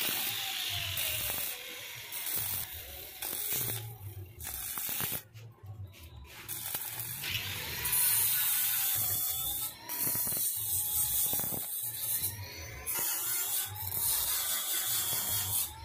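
Stick (arc) welding on stainless steel railing tube: the arc crackles and hisses as the electrode is run along a joint, breaking off and striking again several times.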